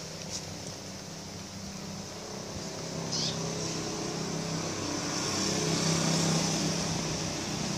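Steady low engine-like hum that swells toward about six seconds in, with a brief high chirp about three seconds in.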